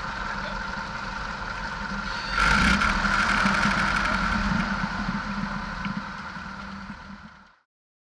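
Piper PA-18-150 Super Cub amphibian's four-cylinder engine running steadily. It gets louder about two and a half seconds in and fades out near the end.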